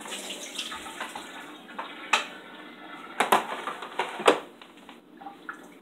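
Water pouring out of a Breville Barista espresso machine's water tank as it is emptied, with several sharp knocks of the tank around the middle; the pouring dies away about five seconds in.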